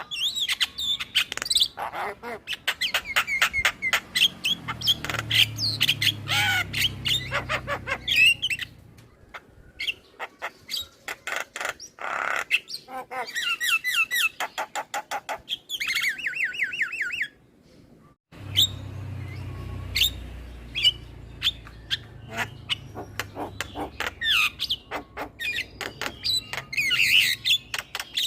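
Male Javan myna chattering: a busy jumble of harsh squawks, sharp clicks and whistled slides. About halfway through comes a fast run of repeated notes, then a short break.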